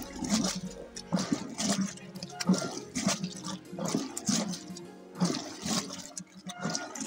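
Curd being churned into butter: a wooden churning stick works through the thick buttermilk in a churning vessel, making a run of wet sloshing swishes, roughly one or two a second.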